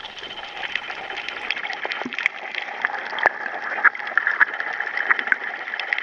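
Underwater coral reef soundscape: a steady hiss filled with dense small clicks and crackles, with a few sharper clicks among them.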